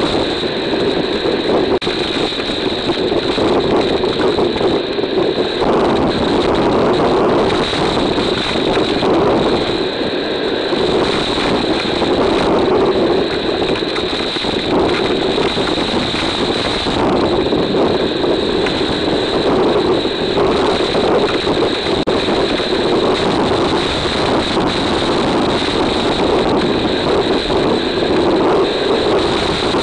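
Hurricane wind and driving rain, a loud steady roar buffeting the trail camera's microphone.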